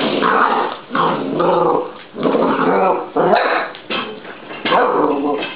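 A puppy growling and yapping in a string of short, bending calls while it plays with a door stopper, with two sharp clicks near the middle and toward the end.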